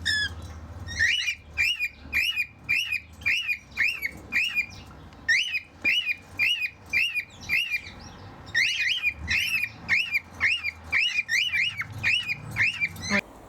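A group of cockatiels singing to each other: a long run of short, repeated chirping whistle notes, about three a second, with a couple of brief pauses, stopping just before the end.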